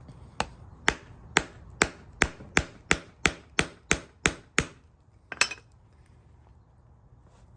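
Hammer blows on the stamped metal retainer of a 1972 Ford LTD window crank knob, struck to bend and break the lip around the washer so the old knob comes off. About a dozen sharp, even strikes, roughly two and a half a second, then a short double knock about five and a half seconds in.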